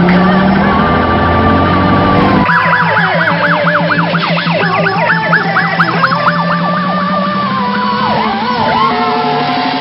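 Fire apparatus sirens sounding while responding code 3. A steady wail gives way, about two and a half seconds in, to rapid yelping from several overlapping sirens, over a low tone that rises slowly.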